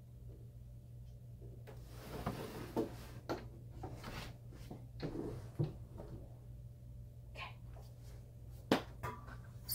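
Wooden bifold closet doors being folded shut by hand: scattered knocks, clicks and rustles of the panels and hinges, over a steady low hum. One sharp click near the end.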